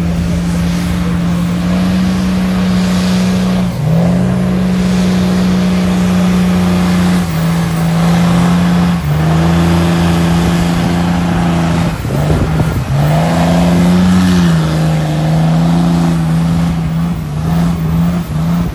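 Cummins turbo diesel in a mud truck running hard under heavy load as its giant tires churn through a deep mud pit. The engine note holds high and steps up and down in pitch every few seconds as the tires spin and bite.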